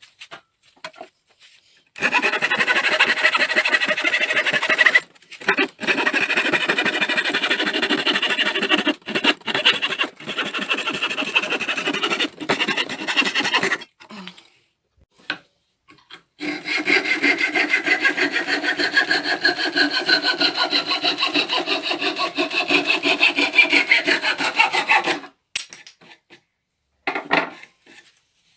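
Coping saw cutting through a wooden axe head in quick, steady strokes. It goes in two long runs with a few short pauses, and the ringing pitch of the cut slides lower near the end of the second run.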